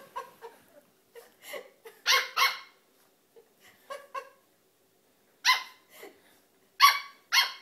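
King Charles Spaniel puppy play-barking at an adult spaniel with high-pitched yaps: two loud barks about two seconds in, another a little past halfway, and two more near the end, with softer yips between.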